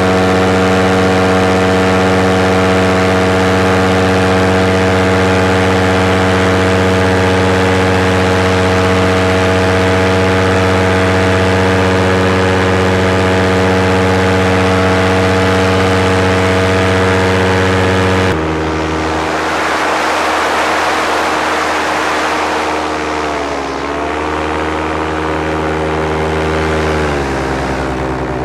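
Small aircraft's engine and propeller running steadily at cruise power, heard on board with wind rush. About two-thirds through the engine note drops abruptly to a lower pitch, then dips and wavers twice as the power changes.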